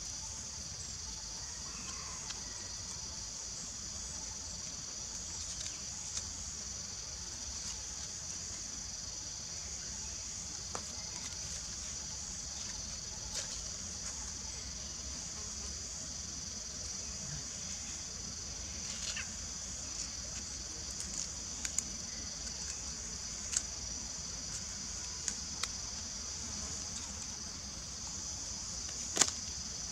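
Steady high-pitched chorus of insects buzzing without a break. A few sharp clicks come in the second half, and the loudest one comes just before the end.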